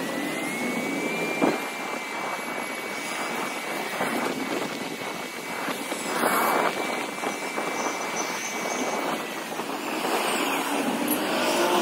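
Street traffic noise heard while cycling along a city bike lane: a steady rushing noise, with a thin steady whine through most of it that fades out about nine and a half seconds in, and a single sharp click about a second and a half in.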